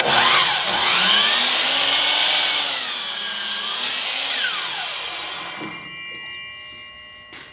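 DeWalt 12-inch sliding compound miter saw starting suddenly and crosscutting a wooden 2x4, its pitch bending as it works through the board. Over the last few seconds the sound fades away as the blade winds down.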